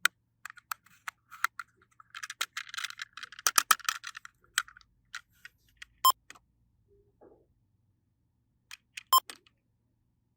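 Small plastic toy pieces clicking and rattling as they are handled, with a denser clatter a couple of seconds in. Two short electronic beeps from a toy thermometer follow, about three seconds apart.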